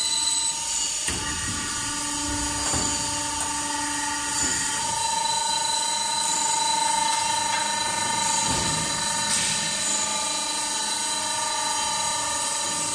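C strut channel roll forming machine running: a steady mechanical whine with several held tones, and a few knocks now and then.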